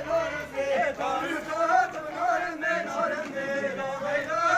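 Wedding dance music with a man singing a wavering melody line over it.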